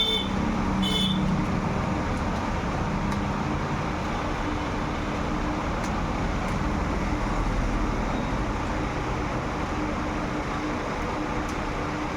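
Steady, even background rumble with a faint steady hum, of the kind heard from traffic. A brief high-pitched tonal sound in the first second.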